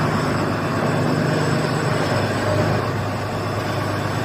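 Crawler drilling rig's engine running steadily with a low hum.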